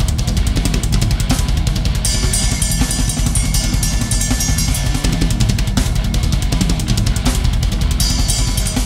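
Drum kit played hard and fast in a thrash metal pattern: rapid bass drum strokes with snare hits. Cymbals wash in about two seconds in, drop away about six seconds in and come back near the end.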